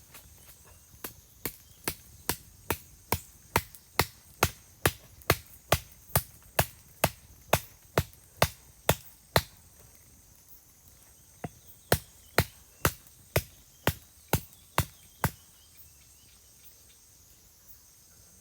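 Small hammer striking again and again at an even pace, about two blows a second. A run of some twenty blows, a short pause, then about nine more.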